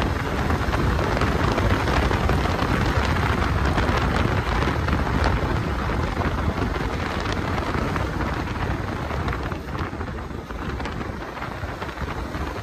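Wind rushing over the microphone on a moving motorcycle, a loud steady roar with road noise underneath, easing slightly near the end.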